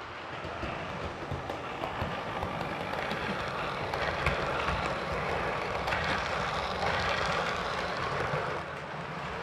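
OO-gauge model train, a Heljan Class 25 diesel with its coaches, running past close by on the track. It makes a steady rolling noise that builds up, stays loud while the coaches pass, and drops away shortly before the end.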